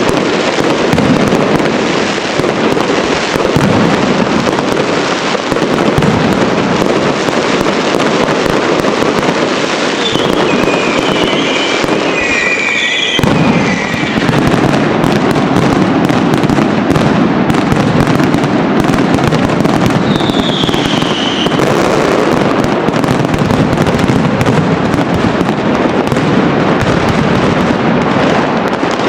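A dense, unbroken barrage of fireworks and firecrackers bursting and crackling, with high whistles about ten seconds in and a falling whistle around twenty seconds in.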